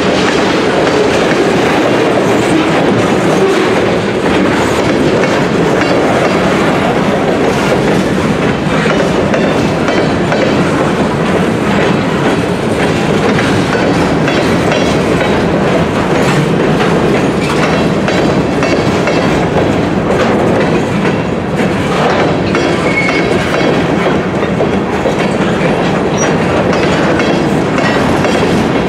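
Freight train's tank cars and covered hopper cars rolling past close by, a steady loud rumble with the steel wheels clicking over the rail joints.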